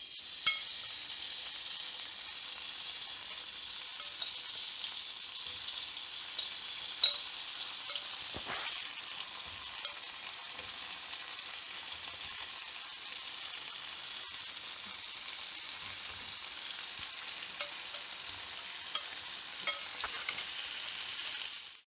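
Shredded pork sizzling in hot oil in a frying pan: a steady hiss with occasional sharp clicks.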